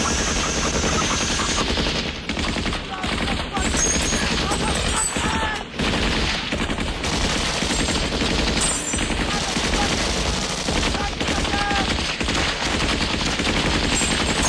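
Sustained automatic gunfire: several machine guns firing long, nearly unbroken bursts.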